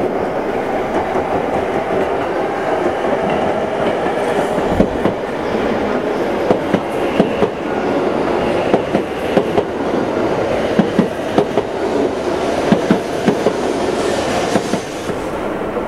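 E7/W7-series Hokuriku Shinkansen train pulling slowly into a station platform, a steady rolling rumble. From about six seconds in comes a run of sharp irregular clicks.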